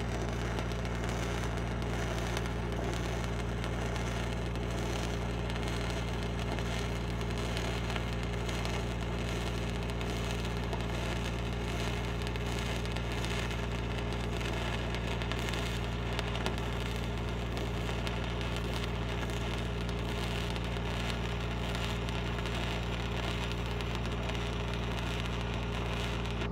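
Stick welding arc burning steadily as a 5/32 E8010 rod runs a downhill first pass on the bottom of a 12-inch steel pipe, over the steady hum of a Lincoln SAE 300 engine-driven welding machine. The arc sound cuts off right at the end as the arc is broken.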